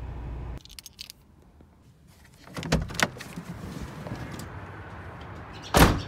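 Getting out of a Volkswagen Mk3 Jetta: a steady low hum cuts off just after the start, then keys jingle and the door latch clicks. The car door is shut with a loud thud near the end.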